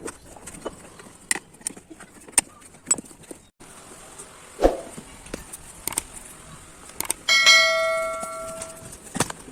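Scattered clicks and knocks of handling, then about seven seconds in a single bell-like metallic ring that dies away over about a second and a half.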